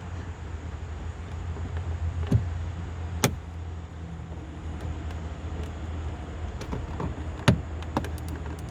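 Plastic retaining clips of a car door's window-switch trim snapping loose as the piece is pried up: a few sharp clicks over a steady low hum.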